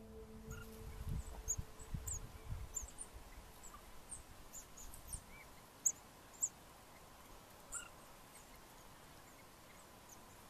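Faint outdoor field sound of foraging in dry leaf litter: soft rustling and scuffing in the first few seconds, with scattered short, high-pitched chirps throughout, two of them louder about six seconds in. The last note of background music dies away at the start.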